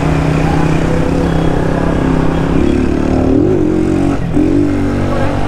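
Motorcycle engine running at low speed, revving up and back down a couple of times around the middle.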